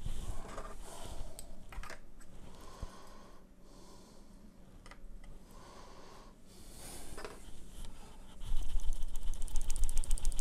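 Handling noise as a soundbar and its cables are moved about on a desk: scattered light clicks and rubbing, with a louder stretch of rapid scratchy noise near the end.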